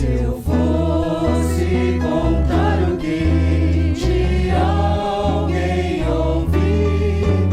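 Christian gospel music: voices singing a melody over steady bass notes and instrumental accompaniment.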